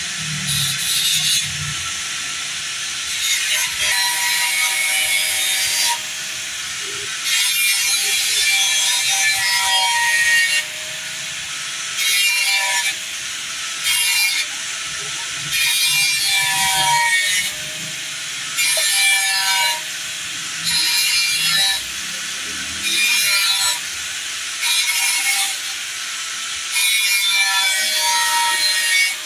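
Repeated rasping, scraping strokes, about a dozen of them lasting one to three seconds each, with a quieter hiss between strokes and short squeaks within them.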